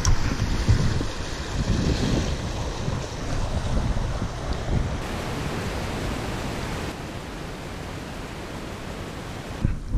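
Small waves surging and washing over a seaweed-covered rock shelf at the water's edge, with wind buffeting the microphone in gusts that are strongest in the first few seconds and ease off later.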